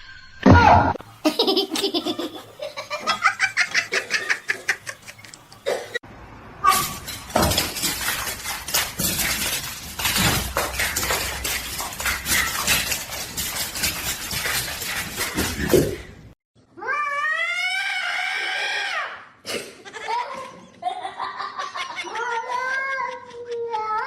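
People laughing in repeated bursts, across several short clips that cut abruptly from one to the next.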